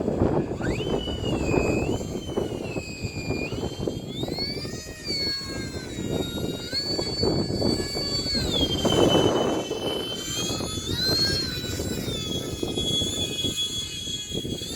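Electric ducted fans of a small UMX A-10 model jet whining in flight, the pitch rising and falling with the throttle. Gusty wind buffets the microphone underneath.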